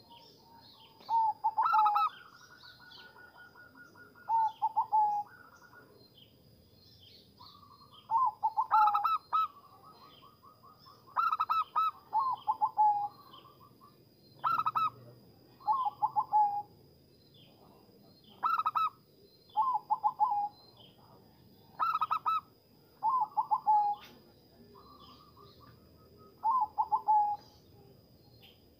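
Zebra dove (perkutut) cooing: short rolling phrases of rapid staccato coos, repeated every couple of seconds. Fainter, higher-pitched even trills run between some of the phrases.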